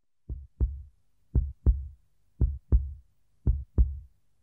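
Heartbeat sound effect: slow, low double thumps, lub-dub, each pair about a second apart, four times.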